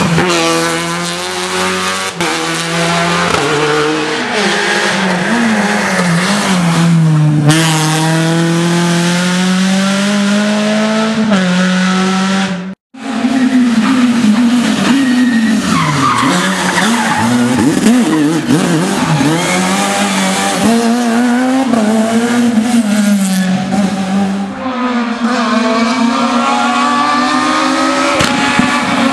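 Rally cars at racing revs on a tarmac stage: engines rising and falling in pitch through gear changes and braking as they pass. The sound breaks off for an instant a little before halfway at a cut, and near the end another car's engine climbs as it approaches.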